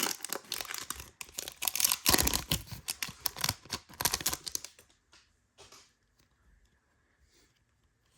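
A trading card pack's wrapper being torn open and crinkled by hand: a dense run of tearing and rustling that stops about five seconds in, followed by a few faint rustles.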